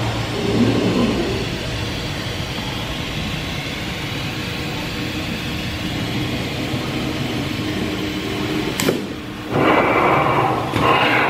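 Steady machinery hum with faint low tones. About nine seconds in there is a sharp click, followed by two short bursts of rushing noise near the end.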